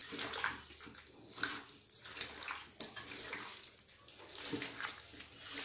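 Hands squeezing and mashing marinated chicken pieces with sliced onions and ginger-garlic paste in a steel bowl: soft, wet squishing in irregular bursts.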